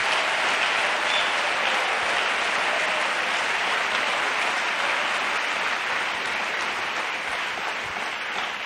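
Congregation applauding together, a steady dense clapping that eases off slightly near the end.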